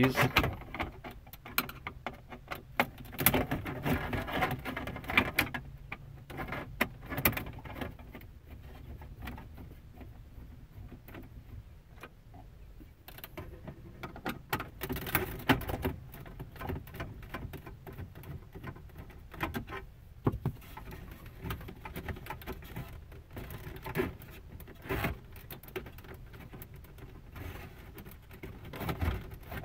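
Irregular scratchy clicks, ticks and rattles of a T20 Torx bit turning out screws from a car's plastic center console, with plastic trim and small parts being handled.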